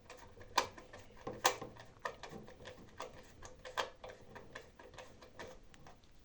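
Screwdriver loosening a small screw on a DVR's metal cover: a string of light, irregular clicks and ticks, several a second.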